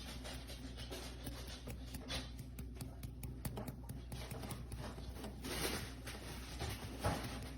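Light handling noises, small taps, clicks and scrapes, over a steady low hum, with a short busier rustle about five and a half seconds in.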